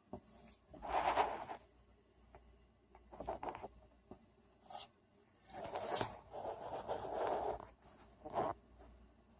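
Sniffles: a nose sniffing in about seven irregular short noisy bursts, the longest near the start and in the middle.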